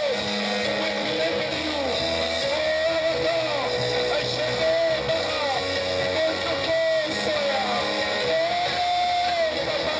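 Live church music led by guitar, with a wavering melody line over steady held notes.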